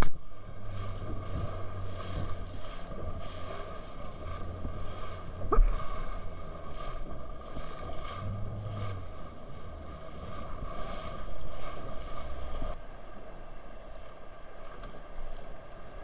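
Boat motor running while the boat moves through choppy water along the shore, with wind buffeting the microphone and a low hum that swells and fades. A single sharp knock about five and a half seconds in.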